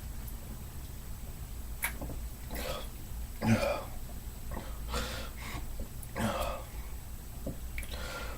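A man burping a few times, short throaty belches with breathing between, the loudest about three and a half seconds in, from gulping carbonated soda. A short sharp click comes about two seconds in.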